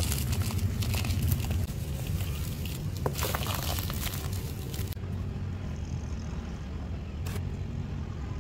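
Dry, dusty mud chunks crumbled by hand into a plastic bowl, crackling and crunching as the powder and pieces pour and sift down. After about five seconds the crumbling stops, leaving a steady low rumble in the background and a single tap near the end.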